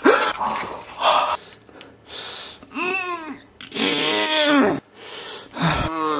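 A person's voice, without words: two short breathy gasps, then a few drawn-out groaning sounds whose pitch rises and falls.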